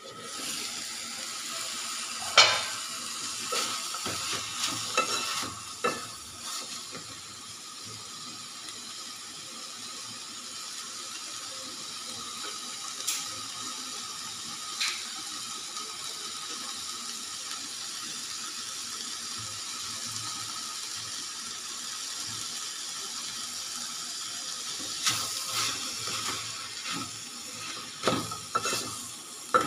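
A bean and tomato curry sizzling steadily in an open steel pan. A sharp metal clank about two seconds in, as the lid is taken off. Scattered clicks and scrapes of stirring follow, bunched together near the end.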